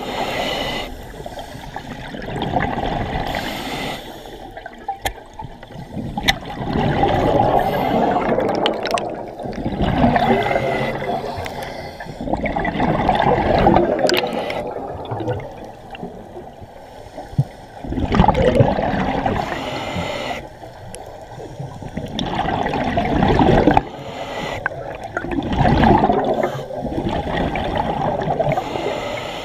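Scuba diver's regulator breathing underwater: exhaled air bubbles gurgling out in a burst every three to four seconds, with quieter gaps between breaths.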